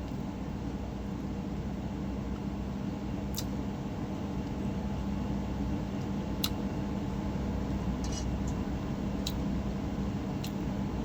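Steady hum of an electric fan in a small room, with a few faint sharp clicks of eating utensils or dishes spread through it.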